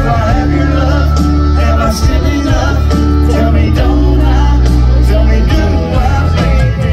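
Live country band playing loudly, with a man singing over heavy bass and regular drum hits.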